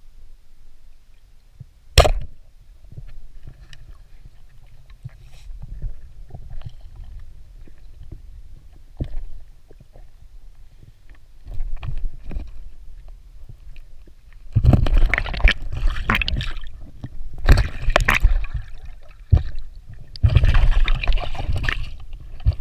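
Water sounds picked up by a camera in or at the water: a low rumble with scattered ticks and a single sharp click about two seconds in, then loud churning and gurgling water in two long stretches in the second half.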